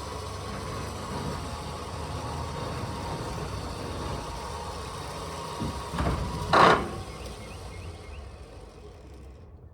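An engine running steadily with a constant hum. A short loud burst of noise comes about six and a half seconds in, and the sound fades away near the end.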